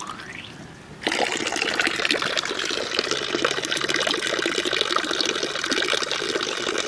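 Spring water from a public fountain's spout splashing and pouring close up, starting suddenly about a second in and running on steadily.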